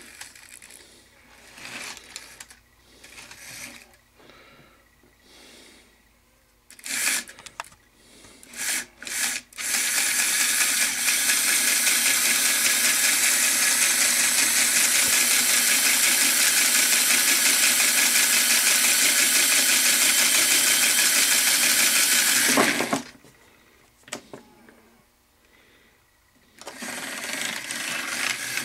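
Bachmann 4-8-4 model steam locomotive's small electric motor and gear drive running along the track. A few short spurts come first, then a loud, steady whirr with a fast buzzing rhythm lasts about thirteen seconds and cuts off suddenly. It starts again more quietly near the end.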